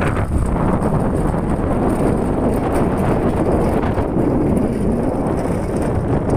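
Wind buffeting the phone's microphone as it moves along, a loud, steady low rushing that cuts off suddenly at the end.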